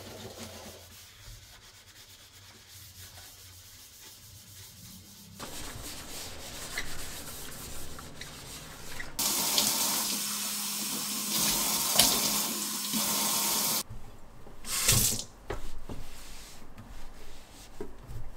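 Kitchen faucet water running into a stainless steel sink and over a cloth being rinsed by hand, a strong steady hiss for about five seconds in the middle that cuts off abruptly. Around it, quieter scrubbing and wiping of the sink and faucet with a cloth.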